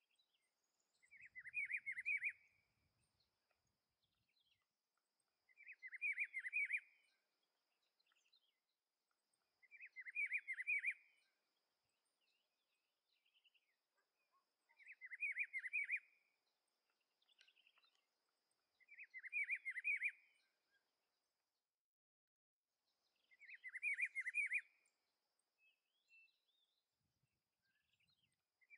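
Rufous-browed peppershrike (pitiguari) singing: the same short warbled phrase of quick notes repeated six times, about every four and a half seconds.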